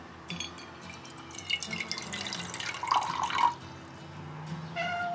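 Liquid poured from a glass bottle into a metal mug, with short gurgles and splashes. A cat meows near the end.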